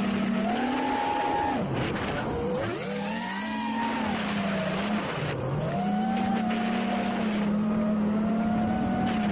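Beagle Drone Kit 2 FPV quadcopter's brushless motors whining in flight, heard from a camera mounted on the drone. The pitch rises and falls as the throttle changes, dipping sharply twice.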